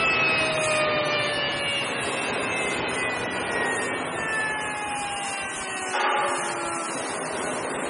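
WFX-30B crusher (high-speed grinder) whining, its several tones falling slowly in pitch as the sound eases off: the machine running down. A brief rattling burst about six seconds in.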